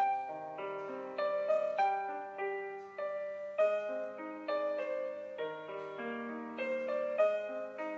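Background piano music: a gentle melody of struck notes and chords, each note ringing and fading. A new phrase begins sharply at the start.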